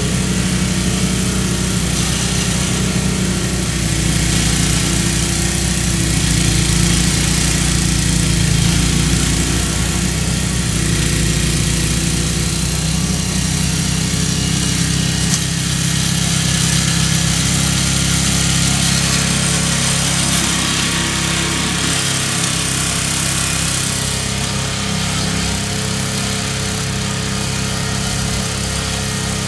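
MTD snowblower's Tecumseh engine running steadily under load while clearing heavy wet snow.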